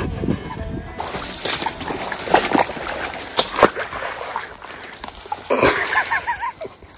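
Footsteps wading through shallow marsh water and pushing through dry reeds and grass, with uneven splashing, sloshing and rustling and many short sharp swishes.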